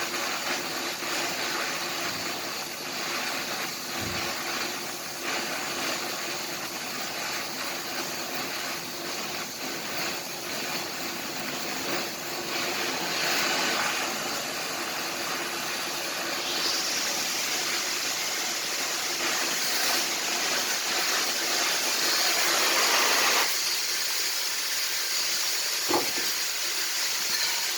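Welding arc hissing and crackling steadily, turning brighter and a little louder about two-thirds of the way through, then cutting off abruptly. A single sharp click follows a couple of seconds later.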